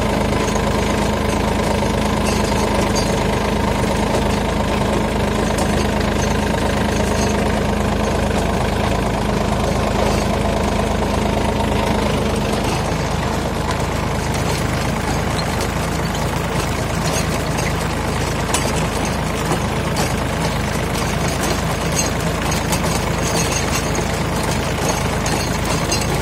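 John Deere 3028EN compact tractor's three-cylinder diesel engine running steadily under load while driving a rotary tiller through soil. The engine note changes about halfway through.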